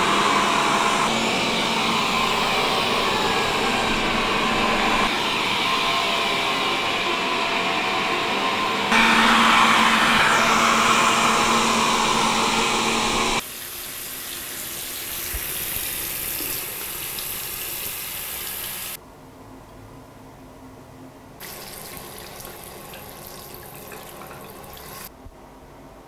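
Xiaomi Mijia STYJ02YM robot vacuum-mop running its suction with a steady hum, louder about 9 seconds in. It cuts off suddenly to a quieter sound of tap water running into a sink as a plastic part is rinsed.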